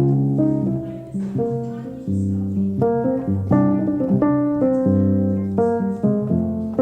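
Background music: a gentle piano piece playing notes and chords at an even, unhurried pace.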